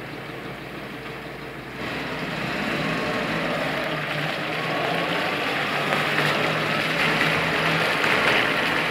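UAZ-469 engine running at low, steady revs, getting louder from about two seconds in as the vehicle drives out through the water toward the listener.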